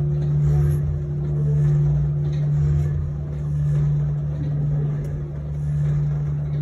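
Three bronze church bells cast by Perrin-Martin in 1860 ringing together in full peal, heard close up in the belfry: a deep steady hum that swells and fades about once a second as the swinging bells strike.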